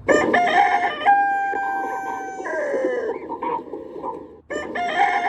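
Rooster crowing twice: a long cock-a-doodle-doo with a held note that falls away at the end, then a second crow starting just before the end.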